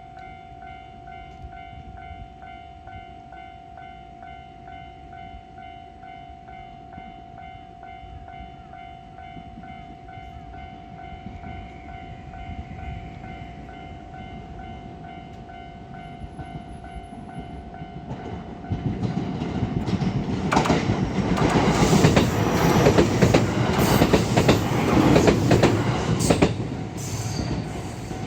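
Japanese railway level-crossing alarm ringing in a steady, fast-repeating tone. About eighteen seconds in, a Kishuji Rapid electric train passes the crossing: a loud rush with the clatter of wheels over rail joints, easing off near the end.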